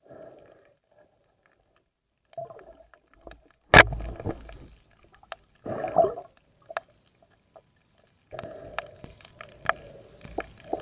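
Underwater sounds picked up through a waterproof camera: muffled bursts of bubbling and water movement with scattered clicks and knocks, the loudest a single sharp snap a little under four seconds in.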